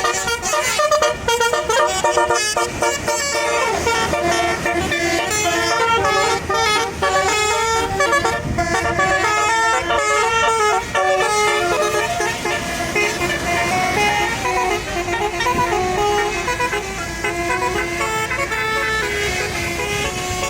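Bus basuri (telolet) horn playing a melody: several horn tones sounding together and stepping from note to note in quick succession, a continuous tune of chords.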